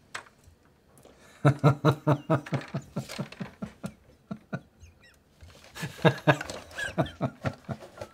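A man laughing hard in two bouts of quick, repeated 'ha' pulses, about four or five a second. The first bout starts about a second and a half in, the second about six seconds in.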